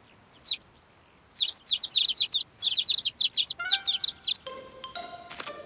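Cartoon baby sparrows chirping: one short high chirp, then a quick flurry of high, downward-sliding chirps. Near the end, chiming music notes begin.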